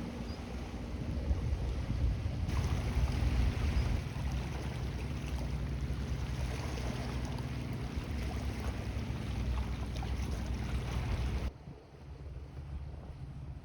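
Low drone of a passing ship's engine over wind and waves at the shore. The sound jumps louder about two seconds in and drops off suddenly near the end.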